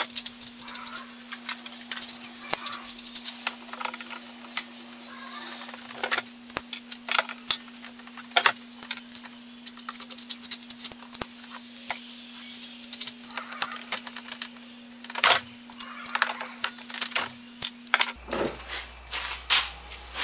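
Metal hand tools clicking and knocking against a wooden tool box, sped up four times, giving a rapid, irregular run of sharp clicks over a steady hum. The hum and the fast-forward stop near the end.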